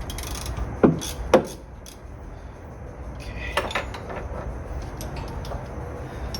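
Sharp metal clinks of hand tools on a three-jaw puller and crank pulley, two loud ones about a second in and a few lighter ones later, over a low steady hum.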